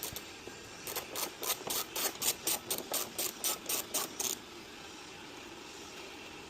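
Hand ratchet wrench clicking in a quick, even run of about three or four clicks a second as a bolt is backed out. The clicking stops a little past halfway through.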